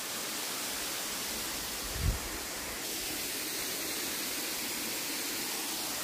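Waterfall cascading down a rock face: a steady, even rush of falling water. A brief low bump about two seconds in.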